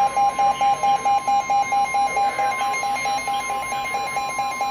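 NOAA Weather Radio 1050 Hz warning alarm tone, one steady high tone, with a rapid, evenly pulsed beeping alarm over it: the alert that a tornado or severe thunderstorm warning broadcast is about to follow.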